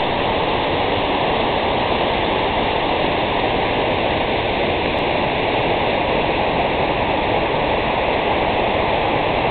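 Creek water rushing over rocks in whitewater rapids, a steady loud rush.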